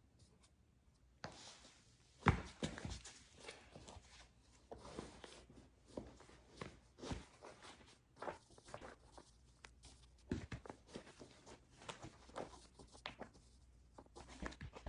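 Faint, irregular taps, scuffs and rustling from handling a shoe and its heel-lift insert, with small knocks about once a second.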